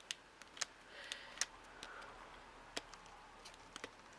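Light, irregular clicks and taps of small craft pieces and tools being handled on a miniature model, with a faint rubbing sound about a second in.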